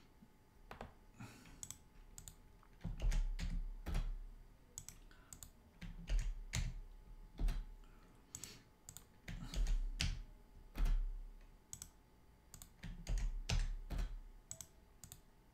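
Computer keyboard keystrokes and mouse clicks, coming in irregular clusters of sharp taps as new entries are added in software.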